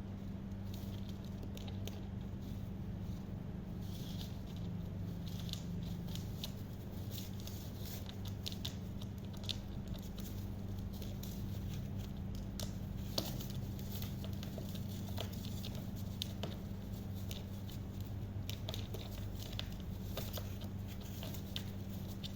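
A baby parrot's beak and claws scratching and nibbling, irregular small clicks and scrapes over a steady low hum.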